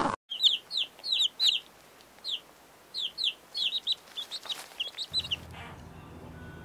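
Chicks peeping: a quick run of short, high-pitched, downward-sliding peeps that stops about five seconds in.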